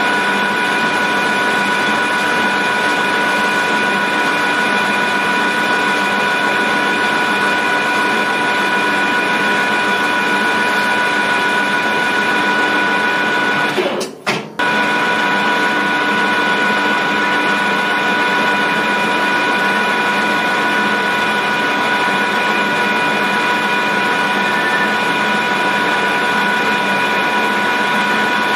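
Manual metal lathe running steadily under power with a constant high-pitched whine while a turning tool takes a light tidy-up cut on a threaded spindle. The sound briefly drops out twice about halfway through.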